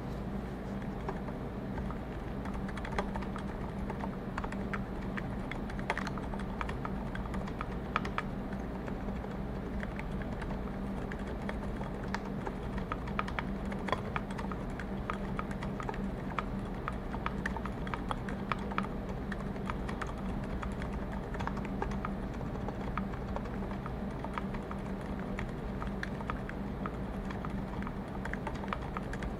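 Continuous typing on a custom mechanical keyboard with Cherry MX Zilent silent tactile switches, lubed with Krytox 1514 and fitted with switch films, in a brass-plated case with GMK keycaps: muted, irregular keystrokes several a second, over a steady low hum.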